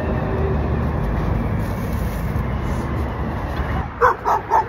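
Steady low noise of road traffic. About four seconds in, a dog starts yipping several times in quick, short calls.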